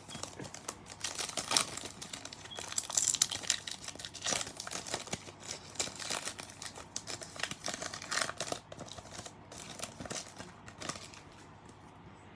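Trading-card pack wrapper being torn open and crinkled by hand, a dense run of crackles that thins out near the end.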